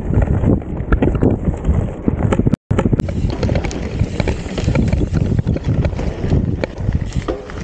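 Mountain bike clattering and rattling as it rides over a rough, rocky trail, with tyre noise and wind buffeting the microphone. The sound cuts out completely for a split second about two and a half seconds in.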